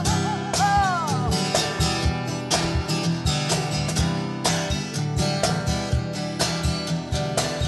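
Acoustic guitar strummed in steady rhythm, with a cajón played by hand keeping the beat in regular sharp strikes. A sung note trails off and falls in pitch in the first second.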